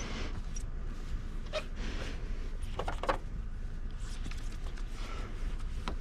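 Cotton towel being rubbed by hand over a car's painted hood, buffing off polishing compound, in short swishing strokes. A steady low rumble sits underneath.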